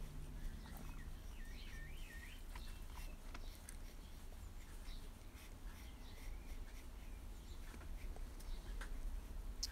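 Faint pencil sketching on sketchbook paper: scattered light scratches and ticks over a low hum, with a short wavering chirp about one and a half seconds in.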